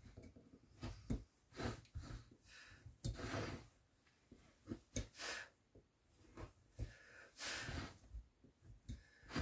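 Corner V-tool gouge cutting short strokes into wood: a string of faint scrapes, some brief and a few longer, with light clicks of the tool.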